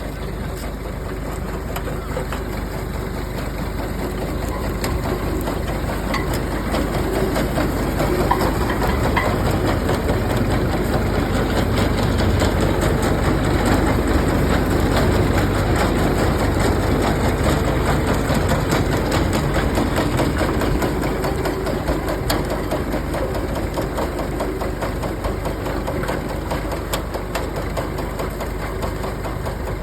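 Tractor engine running steadily while working a tractor-drawn potato harvester, with a dense machine clatter. The sound swells over the first dozen seconds and then eases off a little.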